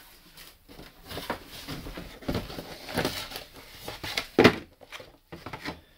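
Cardboard shoeboxes rustling and scraping as they are pulled out of a cardboard carton and opened by hand, with uneven knocks of cardboard on cardboard and one sharp knock about four and a half seconds in.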